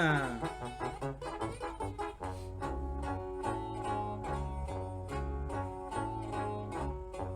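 Instrumental passage of a corrido bélico: low brass bass notes, most likely a tuba, play a steady rhythmic line under plucked guitar, after a short falling slide right at the start.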